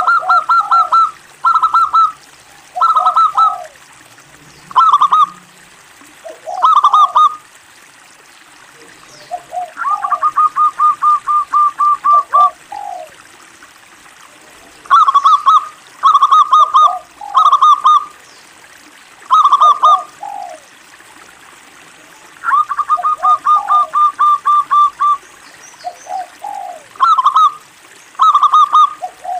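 Zebra dove (local perkutut) singing: short phrases of quick staccato coos, repeated every second or two with pauses between, and twice a longer even run of about a dozen rapid notes.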